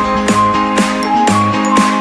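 Background music with a steady beat of about two strokes a second under a bright, bell-like melody.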